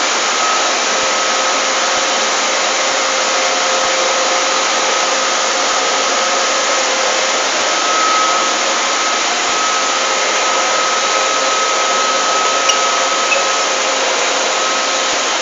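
Steady, unbroken hiss with a faint steady whine from machinery in an EDM workshop, where a small-hole EDM drilling machine is at work.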